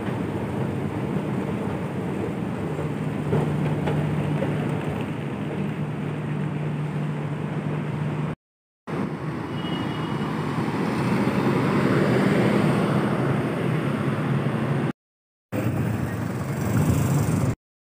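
An escalator running with a steady low hum. After a cut comes outdoor city traffic noise, which swells as a vehicle passes about twelve seconds in. The sound cuts out briefly twice at edits.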